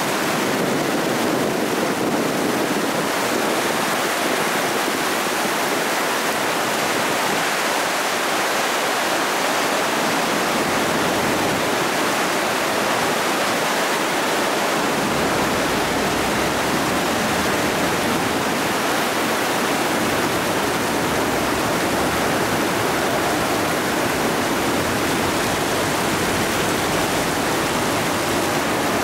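Fast-flowing flash floodwater rushing and churning as a steady, loud rush of water with no break. The sound becomes fuller and deeper about halfway through.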